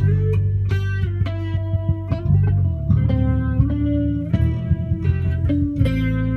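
Electric guitar played unaccompanied: a slow line of about ten single plucked notes, each left to ring on into the next over a low sustained note.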